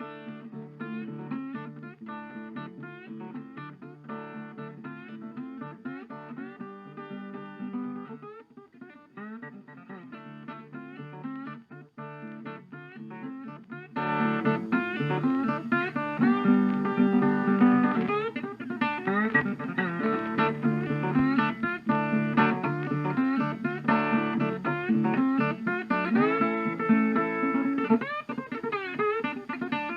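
Background music: acoustic blues guitar picking. About halfway through it gets louder and fuller.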